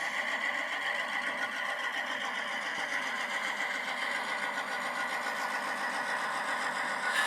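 Model locomotive sound decoder playing an EMD diesel prime mover through a small onboard speaker, running steadily with a fast, even chugging rhythm. The models are repowered Alcos, so the engine sound is an EMD chant rather than an Alco's.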